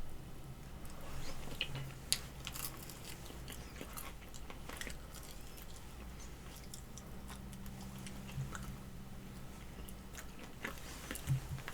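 Close-up chewing and biting of chicken wings, with soft crunches and wet mouth clicks scattered through, over a faint steady low hum.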